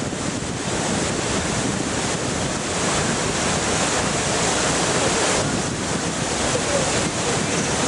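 Fast river rapids rushing steadily, with wind buffeting the microphone.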